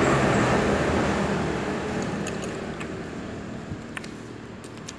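A road vehicle passing by, its noise fading away over the first two or three seconds, followed by a few light clicks of metal cutlery against a bowl.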